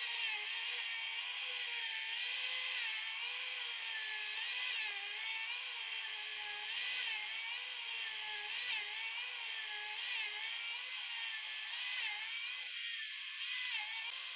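Electric plunge router running at full speed while it is pushed along a wooden strip, routing it. The high whine holds steady but wavers slightly in pitch as the cutting load changes.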